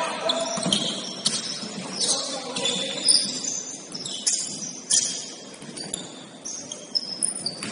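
Basketball shoes squeaking on a gym floor: many short, high squeaks, some sliding in pitch, with a few sharp knocks among them.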